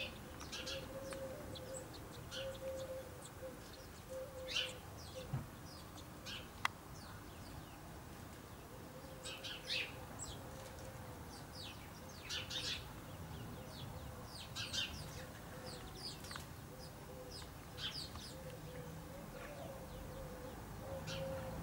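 House sparrows chirping: short, sharp chirps coming in scattered clusters, with a single click about a third of the way through.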